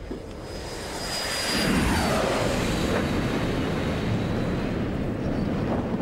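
Sound effect of a small spacecraft's engines flying past: the engine noise builds and its whine falls in pitch about two seconds in as the craft goes by, then settles into a steady low rumble.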